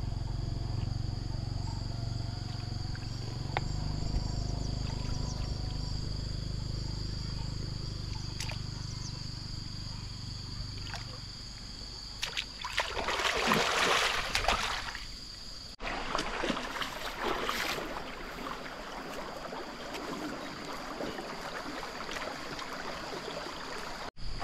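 Water splashing and sloshing as someone wades and handles submerged branches in a shallow muddy river, loudest in a burst about halfway through. A steady, high insect drone runs underneath.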